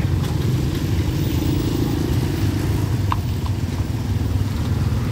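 Road traffic passing close by: a pickup truck, cars and motorcycles driving over a railway level crossing, engines running with a steady low rumble. A short high beep sounds about three seconds in.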